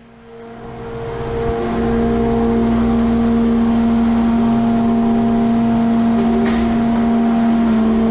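Bobcat skid steer engine running under load as it carries hay bales on a bale grapple: a steady drone with a constant whine, growing louder over the first two seconds and then holding. A short click about six and a half seconds in.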